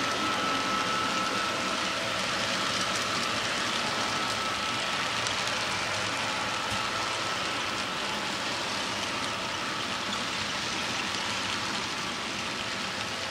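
HO-scale model freight cars rolling past on the track, a steady rushing clatter of small wheels on rail. A faint high tone fades away over the first half.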